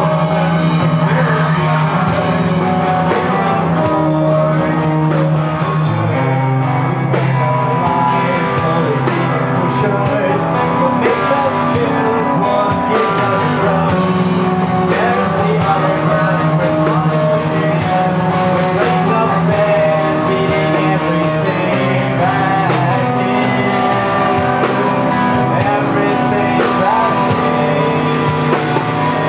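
Rock band playing a song live, with steady sustained notes over a continuous run of percussive hits.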